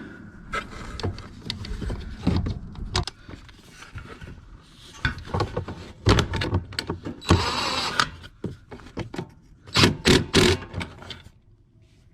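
Hands working on a scooter's fuel pump assembly: scattered clicks and knocks of plastic and metal parts, a short scraping rush about seven seconds in, and a cluster of loud knocks near ten seconds. The engine is not running.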